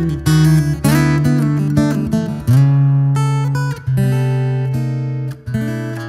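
Martin 000-13E steel-string acoustic guitar played fingerstyle: plucked melody notes and chords over ringing bass notes, a new attack coming roughly once a second, each left to ring and fade.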